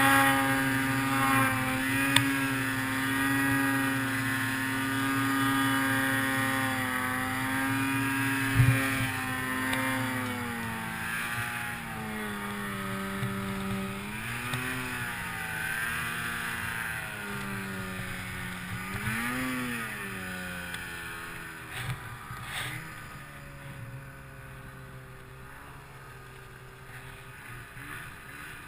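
2008 Ski-Doo Summit 800 cc two-stroke snowmobile engine held at steady high revs while ploughing through deep powder, then easing off and revving up and down twice, growing quieter toward the end. A single thump about eight and a half seconds in.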